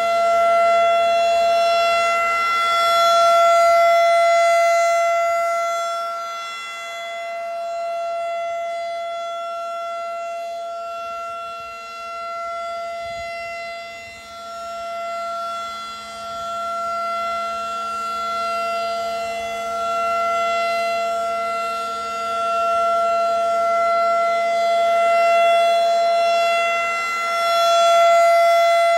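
Federal Signal 2001 DC outdoor warning siren sounding a steady alert tone for a tornado drill. Its pitch holds level while the loudness swells and fades every several seconds as the rotating siren head turns.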